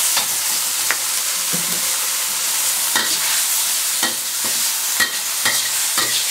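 Water spinach sizzling in a hot wok over high heat, freshly splashed with soy sauce, with a steady hiss. A metal spatula scrapes and knocks against the wok about once a second as the greens are tossed.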